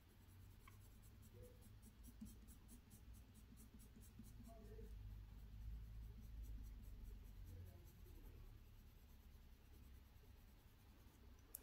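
Faint scratching of a graphite pencil shading on drawing paper in quick repeated strokes, over a low steady hum. A single sharp click near the end.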